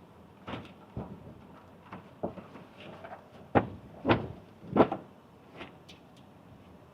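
Irregular knocks and clunks of things being handled, with three louder ones in quick succession about halfway through.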